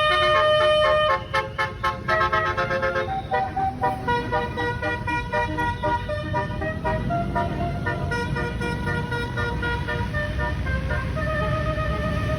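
Tour bus's roof-mounted basuri musical horn playing a tune, with short quick notes at first and then longer held notes, over the low rumble of the bus.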